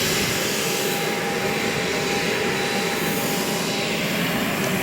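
Jet aircraft engines running on the ground: a loud, steady rushing noise with a thin, steady whine through it.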